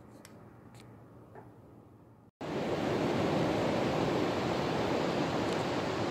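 Quiet room tone with a few faint clicks, then about two seconds in an abrupt cut to a loud, steady rushing of ocean surf on a beach.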